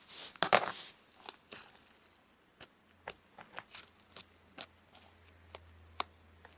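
Slime being pressed by hand, giving a loud cluster of crackling pops about half a second in, then scattered single clicks and pops.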